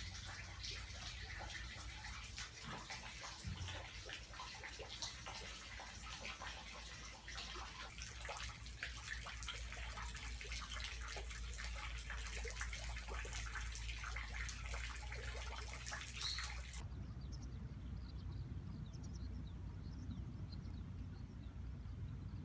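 Rain falling and dripping, a dense patter of many small drops. About 17 seconds in it cuts off suddenly to a low rumble.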